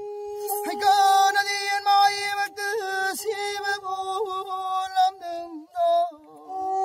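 Folk singing to a bowed pena, the Manipuri one-string fiddle: long held notes with quick turns and bends between them, breaking off and starting again a few times.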